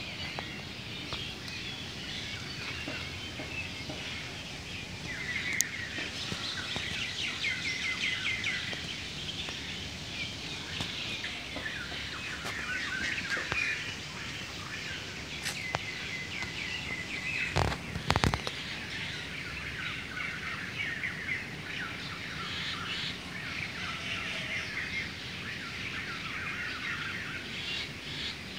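Many small birds chirping and twittering together in a steady chorus, with two sharp knocks about two-thirds of the way through.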